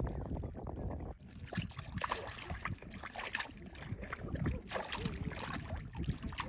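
Hunting dogs lapping and splashing water as they drink, a quick irregular run of wet slaps, with wind on the microphone in the first second.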